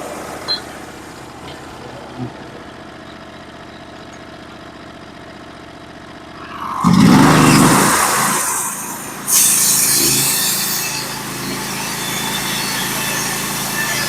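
Band sawmill's engine idling steadily, then revving up with a loud surge about seven seconds in. From about nine seconds a steady, hissier cutting noise follows as the band saws through the white pine cant.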